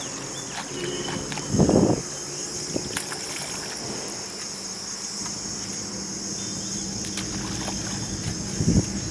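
Steady high-pitched chorus of insects buzzing. Two brief louder, lower sounds come through it, about two seconds in and again near the end.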